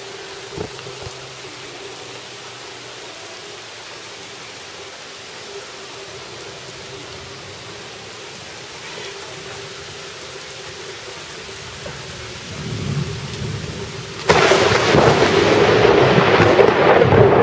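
Steady rain, then thunder: a low rumble builds about twelve seconds in and breaks into a sudden loud thunderclap that keeps rumbling.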